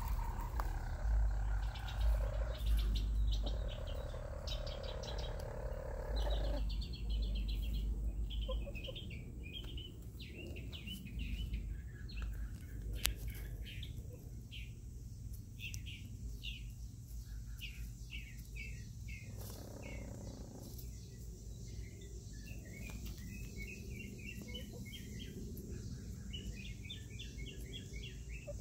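Birds chirping in quick runs of short high notes, starting a few seconds in and growing busier near the end, over a low steady rumble. A louder rushing noise fills the first few seconds.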